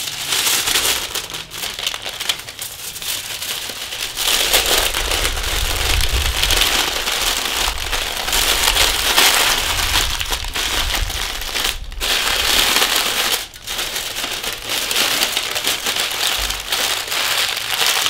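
Aluminium foil and baking paper being folded and crimped by hand around a parcel: continuous crinkling and rustling, with two short breaks in the second half.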